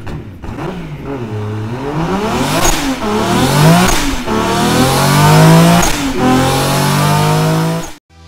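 Car engine revving and accelerating hard. Its pitch climbs and falls back again several times, as if shifting up through the gears, and it cuts off suddenly near the end.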